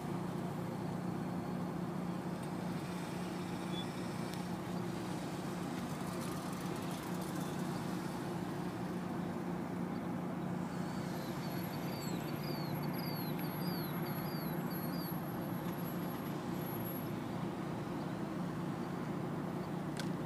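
Steady low droning hum of outdoor background noise. About halfway through, a bird gives a run of about ten short, high chirps.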